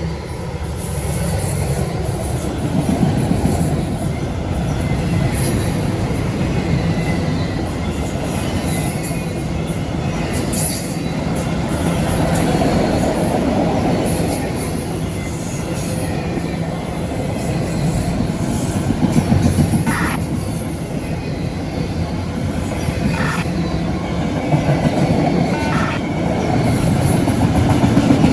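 CSX freight train cars rolling past close by: a steady rumble of steel wheels on rail, with brief high-pitched wheel squeals now and then and a few sharp clicks in the second half.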